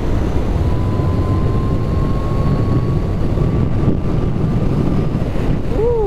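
Wind and road noise rushing over the microphone on a Zero SR/S electric motorcycle at highway speed, with the electric motor's faint whine rising slowly in pitch and fading out about five seconds in. Near the end comes a short tone that rises and then falls.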